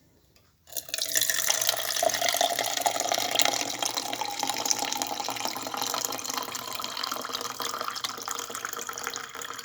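Drinking water being poured or run from a tap into a drinking vessel, starting about a second in and running on steadily.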